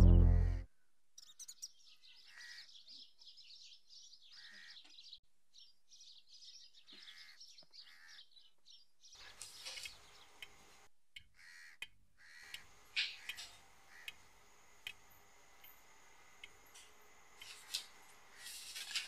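A loud sustained music chord cuts off within the first second. Then faint birds chirp in short, high-pitched clusters, with a low background hiss and scattered chirps and ticks from about nine seconds in.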